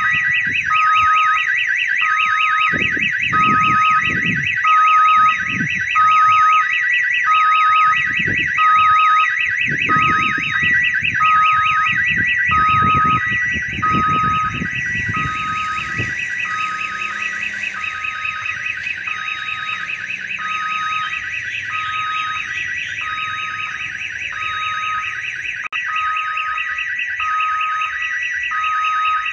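Railway level-crossing warning siren sounding continuously: an electronic alarm with a fast warble and two alternating tones, much like the jingle siren of an odong-odong children's ride. It warns that a train is approaching. Low rumbling bursts come and go beneath it in the first half.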